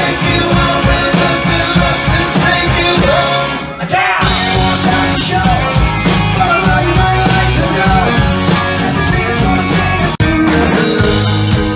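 Rock song with singing, laid over the footage as background music.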